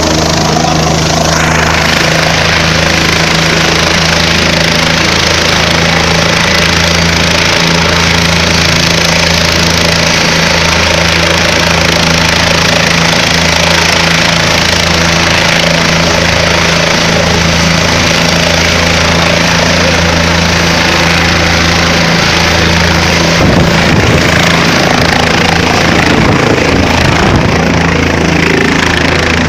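Light turbine helicopter running at close range, its engine and main rotor making a loud, steady drone. From about 23 seconds in, gusty rumble of rotor downwash buffets the microphone as it prepares to lift off.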